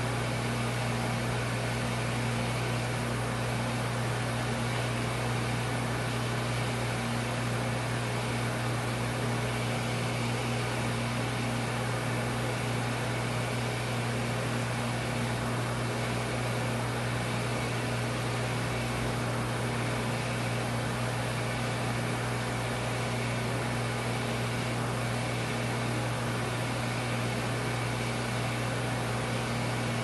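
RB800 commercial tray and utensil washer running a wash cycle with its door shut: a steady, unchanging motor hum under an even rush of water spraying from the rotating wash arms.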